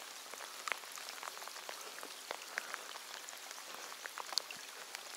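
Steady rain falling on a reservoir's surface, an even hiss with scattered ticks of single drops.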